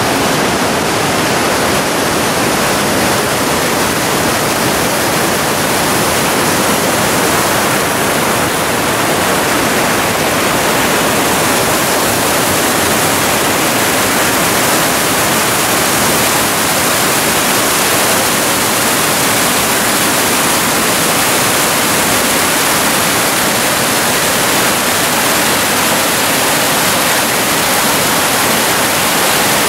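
Fast mountain creek rushing in whitewater cascades over and between boulders: a loud, steady rush of water.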